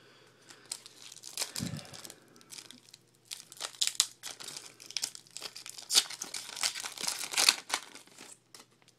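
Foil wrapper of a baseball card pack being torn open and crinkled by hand: a run of sharp crackles and rips, busiest and loudest in the second half.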